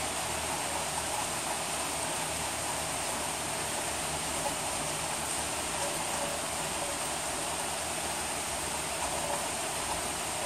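Steady rain falling, heard as an even, unbroken hiss.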